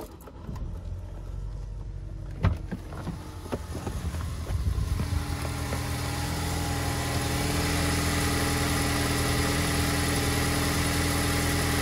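A 2012 Ford Explorer's 2.0-litre EcoBoost four-cylinder engine starts cold and settles into a steady idle, with one sharp knock a couple of seconds in. It sounds muffled at first, then louder and clearer as the microphone moves under the vehicle toward the exhaust. A faint rattle may be audible in the idle, which the mechanic puts down to the turbo's worn, loose wastegate flapper valve on a cold start.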